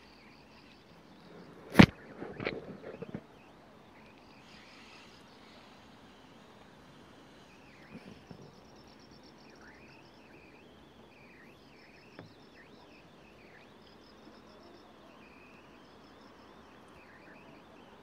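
A sharp knock about two seconds in, followed by a second of softer handling clatter. Then faint outdoor ambience: birds chirping and insects trilling in quick, high-pitched rows.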